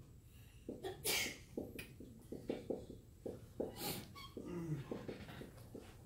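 Dry-erase marker writing on a whiteboard: a run of short, irregular strokes and taps, a few of them sharp squeaks, about a second in and again near four seconds.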